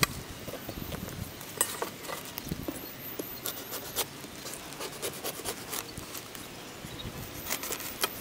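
A long knife being worked down through a whole watermelon, the rind giving irregular sharp cracks and snaps as the blade goes through.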